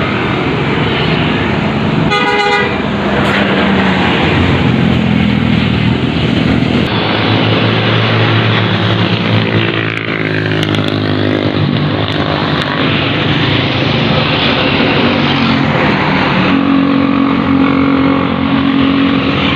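Tour bus Basuri 'telolet' multi-tone horn sounding a run of held tones that change pitch, over bus engine and traffic noise; the steadiest, loudest horn tones come in the last few seconds.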